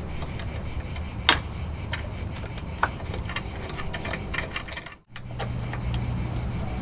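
Light metal clicks and ticks of a ratchet socket wrench turning a 12 mm bolt into a motorcycle fuel tank's front mount, with a sharp click about a second in and a run of small ticks later on. Steady insect chirping goes on underneath.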